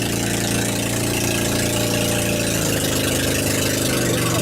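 Outrigger banka boat's engine running steadily, its note dropping slightly about two-thirds of the way through.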